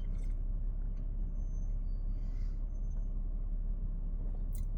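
Steady low rumble of an idling car, heard from inside the cabin.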